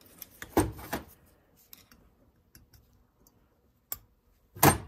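Small sharp metal taps on an Argo 8x8 carburetor as the float hinge pin is tapped into place with a screwdriver. There are a few scattered taps, a louder one about half a second in and the loudest near the end.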